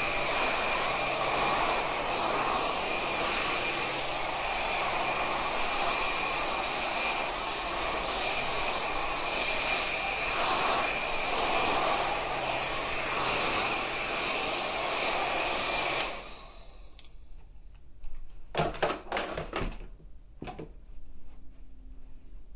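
A steady, loud rushing noise, like a blower or motor running, that cuts off abruptly about sixteen seconds in, followed by a few short clicks.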